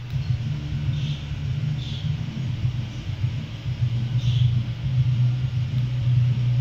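Mother cat purring with a steady low rumble as her kittens nurse, swelling and easing with her breaths. A few short, faint high squeaks sound over it.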